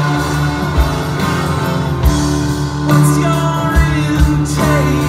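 Live band with an orchestral section of violins, cello, trumpet and saxophone, plus acoustic guitar, playing a slow song, with a man singing.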